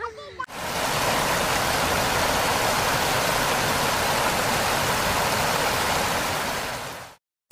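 Heavy water spray from a waterpark play fountain pouring down close by, a dense, steady rush of water that starts about half a second in and cuts off abruptly near the end.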